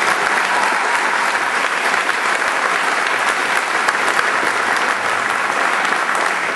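An audience clapping, a dense, steady applause of many hands.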